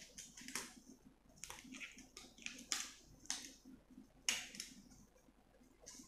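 Medical examination gloves being pulled on and adjusted over the hands: a run of short rubbery snaps and crinkles, about seven of them, the sharpest about four seconds in.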